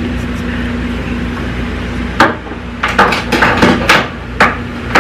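Makeup products and tools being handled and set down on a hard surface: a cluster of about half a dozen sharp clicks and knocks in the second half, over a steady low hum.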